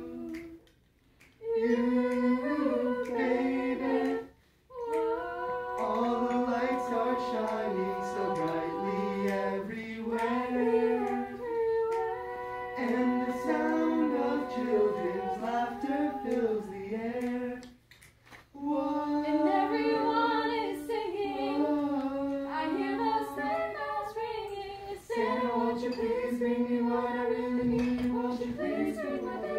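A small mixed group of carolers singing a cappella in close harmony, with short breaks between phrases about a second, four and a half seconds and eighteen seconds in.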